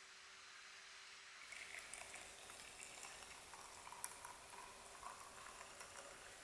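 Faint sizzling and crackling of food frying in a pan, starting about a second and a half in, over a steady faint hum.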